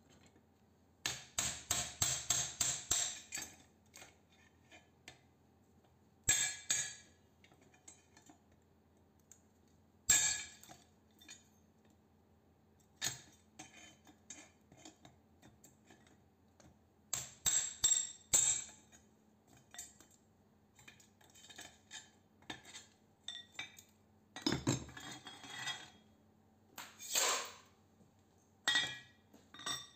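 Steel clinking and tapping as a cold chisel is worked against a small transformer's laminated steel core on a steel bench plate. The sound comes in short clusters of rapid clinks; the longest, about a dozen quick strikes, starts about a second in.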